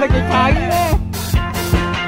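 Music with a steady drum beat of about two hits a second, a bass line and a gliding melodic line.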